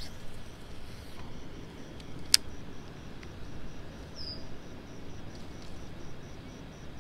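Outdoor ambience: an insect calling with a steady high pulsing, about four pulses a second, over low wind and handling noise. There is one sharp click a little over two seconds in, and a short falling chirp past the middle.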